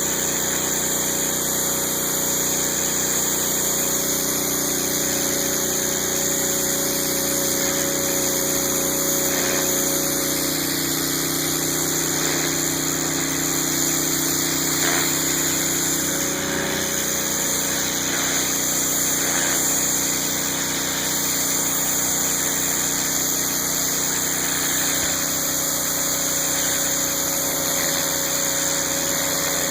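Gas pressure washer driven by a 9 hp Honda GX single-cylinder engine running steadily under load, with the even hiss of the high-pressure spray.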